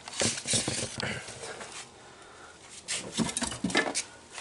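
Rustling and knocking of packaging and parts being handled while unboxing, in irregular bursts with a few sharp knocks about three seconds in.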